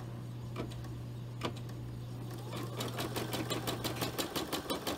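Brother embroidery-and-sewing machine stitching an outline around the hoop: a few slow single stitches, then about halfway in the motor speeds up into rapid, even stitching at roughly ten stitches a second. The needle thread is not catching the bobbin thread, so the stitches are not forming.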